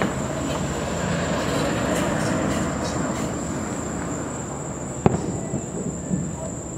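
Distant fireworks shells bursting: a sharp bang at the start and a louder one about five seconds in, followed by a few smaller pops, over a steady background hiss and a constant high-pitched trill.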